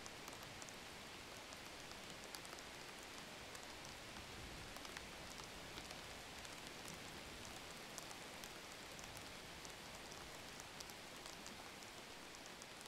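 Faint steady hiss with scattered light ticks, like rain on a surface.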